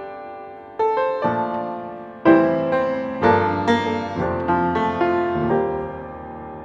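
Background music: slow, gentle piano, single notes and chords struck every half second or so and left to fade.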